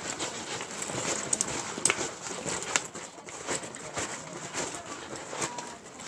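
A fabric daypack being handled and opened: rustling cloth and scattered small clicks and knocks at irregular intervals.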